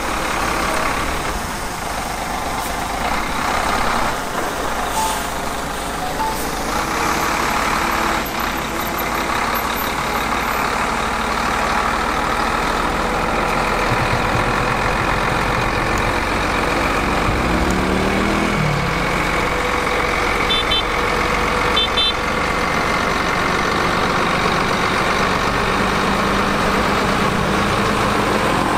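Heavy diesel dump-truck engine running steadily, with a few knocks about five to seven seconds in and two short beeps about twenty seconds in.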